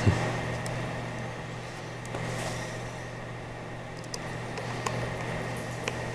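Steady low background hum, with a few faint clicks and taps from small metal parts being handled, about four times.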